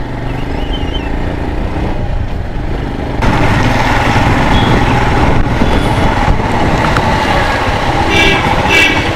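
Motorcycle engine running with road noise while riding, picked up by an action camera's external microphone. The noise grows louder about three seconds in, and two short high tones sound near the end.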